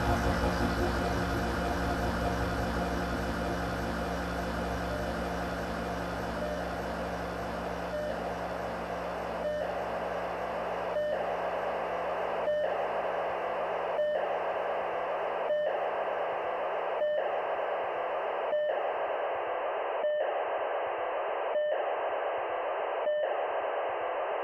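Electronic drone soundtrack: a dense hiss with many held tones, its treble slowly fading away, and from about a third of the way in a short dip roughly every one and a half seconds.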